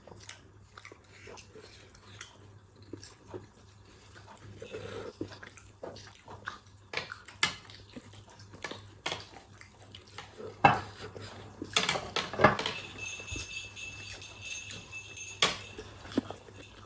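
Scattered light clicks and clinks of cutlery against dishes while eating, a few sharper knocks in the second half. Near the end comes a steady high ringing tone for about two and a half seconds that cuts off suddenly.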